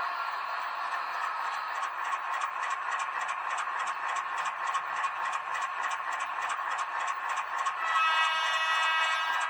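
H0-scale model of a Renfe Alco 313 diesel locomotive running: a steady midrange whirr with a few even ticks a second. About eight seconds in, a steady pitched tone joins it.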